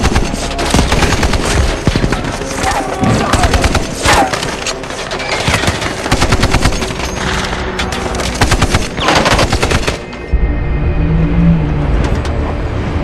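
Sustained automatic gunfire, many rapid shots overlapping in long bursts, cutting off suddenly about ten seconds in. A low, steady music score carries on after it.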